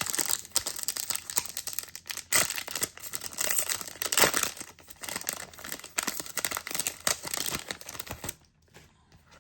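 Trading card pack wrapper crinkling as it is torn open and handled, a dense run of rustles and crackles that stops about eight and a half seconds in.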